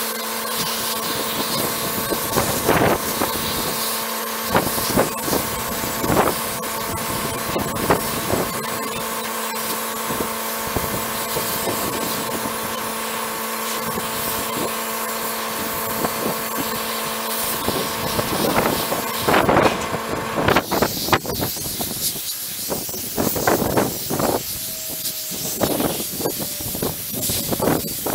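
Sandblasting gun spraying abrasive onto the steel of a 1966 Mustang part: a steady hiss of air and grit with irregular short bursts. A steady motor hum under it cuts off about twenty seconds in.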